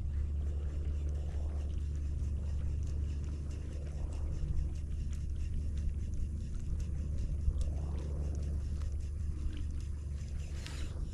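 Wind buffeting the microphone: a steady low rumble, with a few soft swells and faint clicks.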